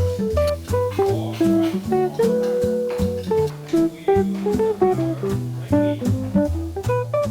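Background music only: a lofi hip-hop beat with plucked guitar notes over a bass line.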